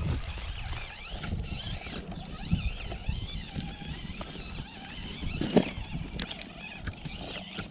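Axial SCX24 Bronco micro crawler's small electric motor and drivetrain whining, the pitch wavering up and down with the throttle, as it crawls over rocks with scrapes and grinding from the tyres; one sharp knock about five and a half seconds in.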